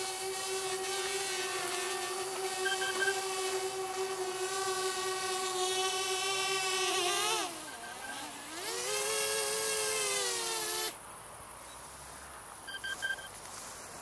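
Parrot Bebop quadcopter's propellers whining steadily in hover. About seven seconds in, as it is caught by hand, the pitch dips and climbs back to a higher whine. The motors cut off suddenly about eleven seconds in, followed by a couple of short high beeps.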